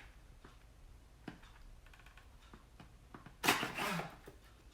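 Faint clicks and light knocks of a cordless hand vacuum's plastic parts being handled, then a short vocal exclamation about three and a half seconds in.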